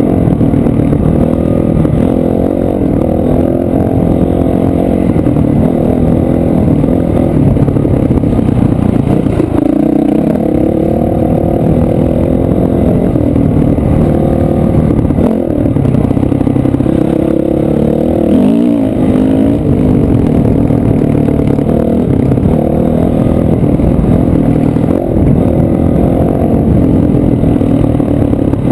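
Dirt bike engine running hard, its pitch rising and falling constantly with the throttle, heard from the rider's helmet.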